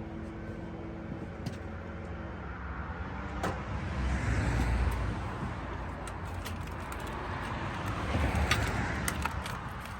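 A passing motor vehicle whose rumble swells twice, with a few light clicks and knocks over it.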